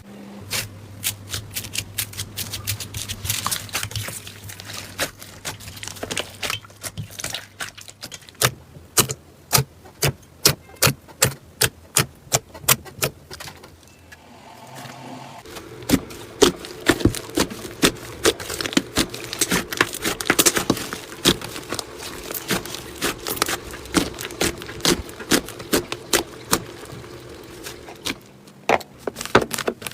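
Slime being squeezed and pressed by hand, giving a dense run of sharp clicks and pops, with a low steady hum underneath in places.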